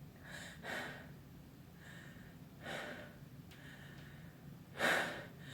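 A person's sharp, gasping breaths between sneezes: about five short, noisy breaths, the loudest about five seconds in.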